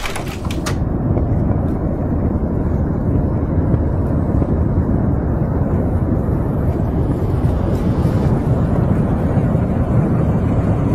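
Steady low rumbling noise of an outdoor phone recording made within sight of an erupting volcano's ash cloud, with a brief swish right at the start.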